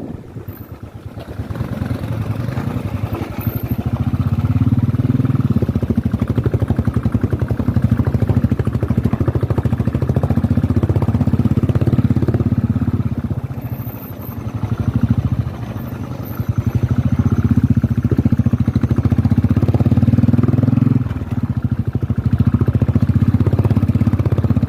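Single-cylinder motorcycle engine running under load, throttle opening and easing off, with brief dips in level a few times.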